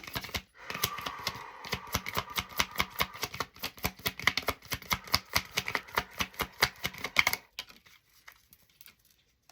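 Tarot cards being shuffled by hand, a rapid run of papery card clicks that stops about seven seconds in.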